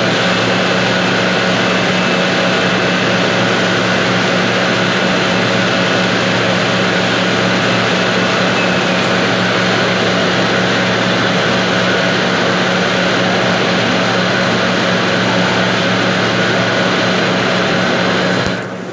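Steady, loud drone of factory machinery: a constant hum with several fixed tones over a dense mechanical noise. The level drops briefly at the very end.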